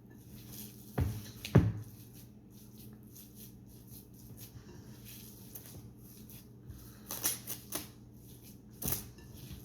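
Ground venison and pork mixture being worked by hand in a bowl: soft squishing with sharp knocks against the bowl, two loud ones about a second and a second and a half in and a few more near the end, over a faint steady hum.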